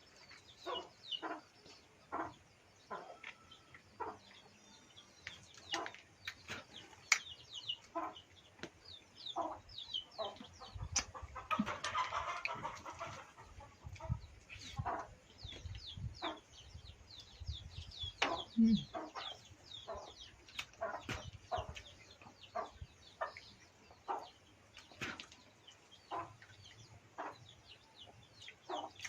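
Chickens clucking, with many short, high chirps and scattered light knocks and clicks throughout.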